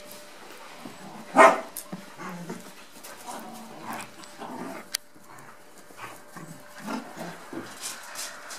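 Dogs playing rough, with one loud bark about a second and a half in, then a run of shorter, quieter dog noises and a brief sharp click about halfway through.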